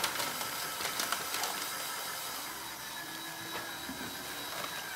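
Cordless drill running steadily with a stirring paddle in liquid in a plastic bucket, mixing the compound used to fit a racing seat. A few light knocks in the first second and a half.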